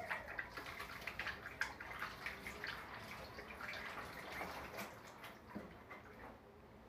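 Water from a kitchen tap splashing into a stainless steel sink as hands are rinsed and rubbed under it, an irregular spatter that thins out near the end.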